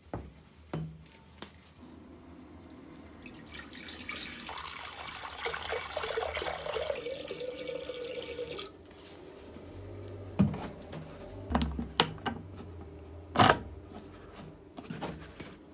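White vinegar poured from a plastic jug into a glass container: a splashing pour lasting about six seconds that stops abruptly. Then come several sharp knocks and clicks as the jug is set down and its screw cap handled, the loudest near the end.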